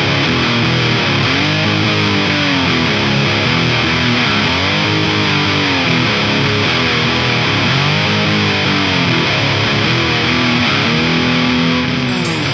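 Heavy metal intro: distorted electric guitar through an effects unit, its notes swooping up and back down in slow arcs every couple of seconds, without drums.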